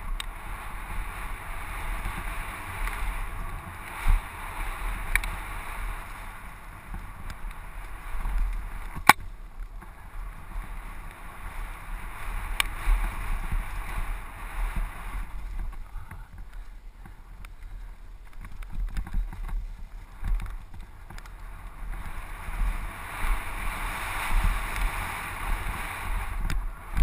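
Downhill mountain bike riding fast down a dirt forest trail: tyres rumbling over the ground and wind rushing over the microphone, with a few sharp knocks and rattles from the bike over bumps, the loudest about nine seconds in. The rush eases for a few seconds past the middle, then builds again.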